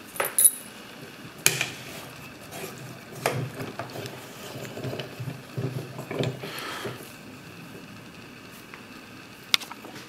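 Sharp metallic clicks, then a few seconds of rattling and scraping from a Sargent & Greenleaf mailbox lever lock and its key being handled, with one more click near the end.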